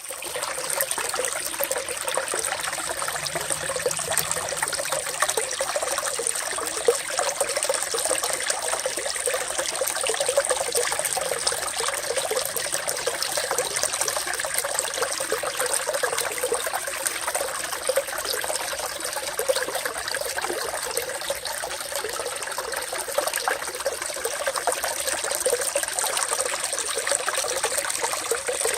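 Water trickling and splashing steadily, an even, continuous flow with no breaks.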